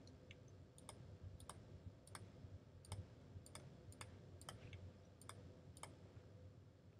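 Faint computer mouse clicks, about ten single clicks spaced roughly half a second apart, each placing a grease pencil dot while drawing in Blender.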